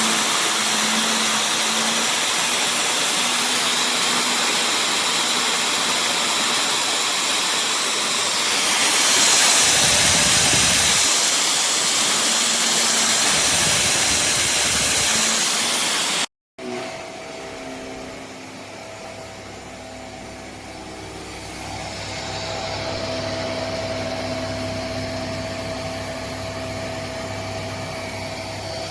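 VOLUEX Jimmy JV35 handheld mite vacuum running with a steady rushing hiss that swells about nine seconds in. It cuts off abruptly about sixteen seconds in and starts again quieter, with a steady motor whine over a low hum.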